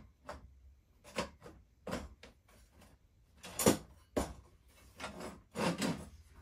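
Laser-cut steel frame parts of a miniature locomotive kit knocking and clanking against each other and the workbench as they are fitted together by hand. It is a series of irregular sharp knocks, the loudest about three and a half seconds in.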